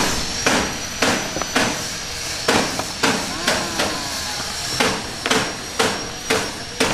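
Sharp knocks repeating about twice a second, with a couple of short gaps, over a thin steady high whine.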